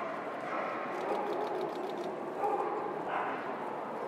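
Background din of a large, echoing show hall: a crowd murmuring, with a dog barking somewhere in the hall.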